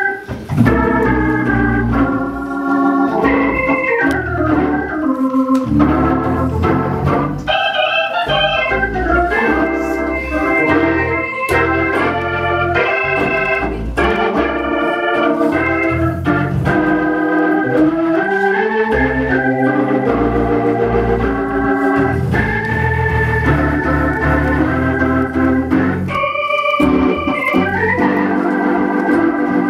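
Organ music: sustained chords with moving runs and slides.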